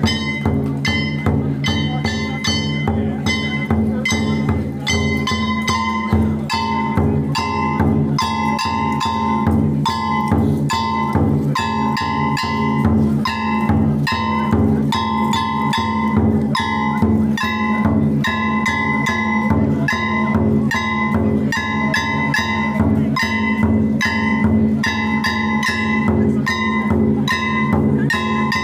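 Japanese festival drum music: a large ōdaiko barrel drum beaten in a steady, driving rhythm, with high held notes sounding above the drumming.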